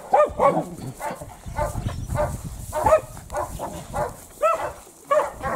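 A leashed dog barking repeatedly at a man in a padded protective suit during protection training. There are several sharp barks, spaced unevenly, with a lull in the middle.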